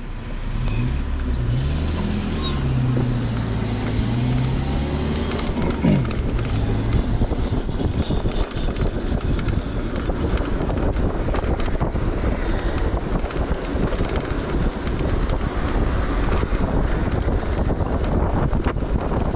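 A car driving in city traffic. An engine note rises and falls in the first few seconds, then a steady rush of road and wind noise carries on.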